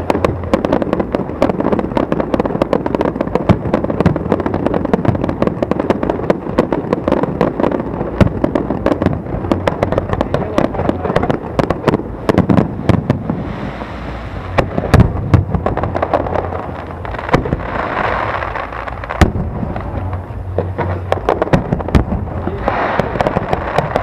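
Aerial fireworks bursting in a dense, continuous barrage: many sharp bangs and crackles in rapid succession, with a few heavier booms among them.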